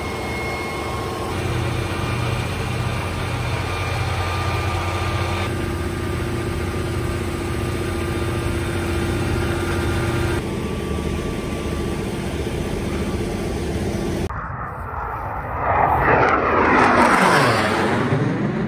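A steady machinery hum with a few constant tones, then in the last few seconds a low-flying military jet passes by. It comes in as a loud rushing sound that swells and sweeps down in pitch as it goes over, the loudest part of all.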